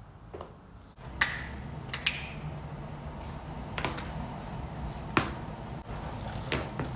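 Joints cracking during chiropractic adjustments: five sharp single cracks a second or so apart, the loudest about a second in and about five seconds in, over a steady low background hum.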